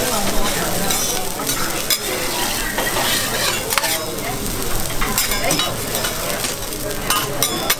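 Eggplant halves sizzling on a hot teppanyaki steel griddle, with a metal spatula scraping and clicking against the plate several times as it presses and moves them.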